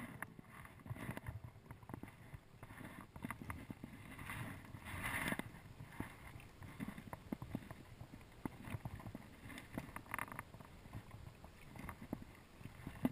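Shallow river water sloshing and splashing around a wading fly angler, with scattered small knocks and louder surges of splashing about five seconds in and again near ten seconds.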